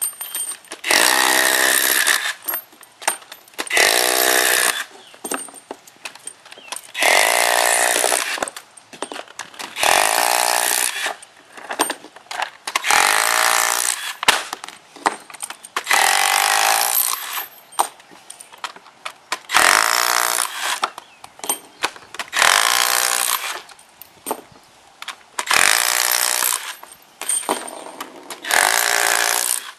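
Cordless driver with a 9/16-inch socket backing Titan 3/8-inch concrete screw anchors out of the ground, in about ten bursts of a second or so each, roughly every three seconds. Each burst rises in pitch as the motor spins up.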